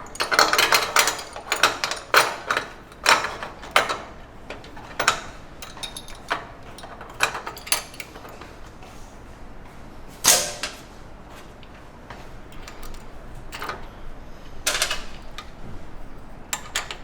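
Irregular metal clinks, clicks and knocks of screws, Allen keys and metal roaster parts being handled during reassembly of the exhaust pipe and cyclone. The clinks come thick and fast in the first few seconds and then thin out, with two louder knocks about ten and fifteen seconds in.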